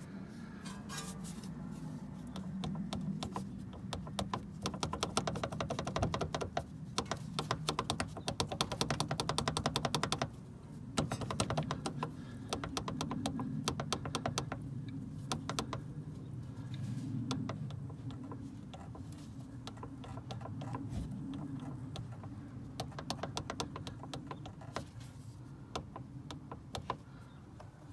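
UAZ Patriot steering shaft knocking and clattering from the driver's side over a steady low rumble of the vehicle, a rapid run of sharp knocks, loudest for several seconds early on and sparser later. The knock is the sign of worn bushings in the steering shaft support.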